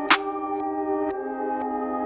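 Background ambient synth music: sustained chords with one sharp percussive hit just after the start, and the chord shifting about a second in.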